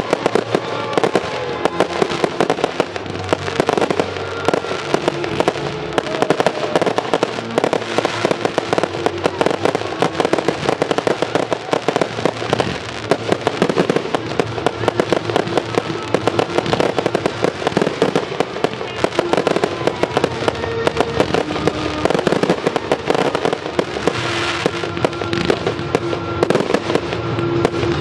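Aerial firework shells bursting in a dense barrage, with rapid bangs and crackling several times a second and no break. Music with held tones plays underneath.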